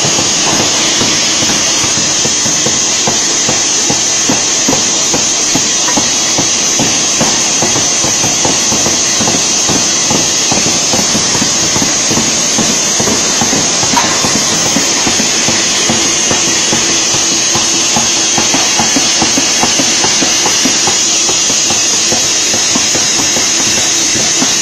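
Pneumatic forging power hammer striking red-hot steel bar stock in fast repeated blows to forge steel balls. A steady high hiss and a low hum run under the blows.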